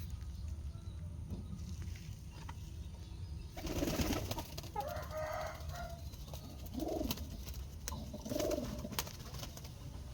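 Domestic pigeons cooing, with low rising-and-falling coos about seven and eight and a half seconds in. There is a rustling burst about three and a half seconds in and a few sharp taps.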